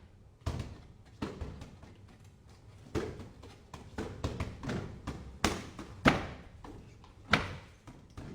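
Fists striking during Wing Chun training: an uneven run of sharp smacks and taps, with about six harder blows among lighter ones.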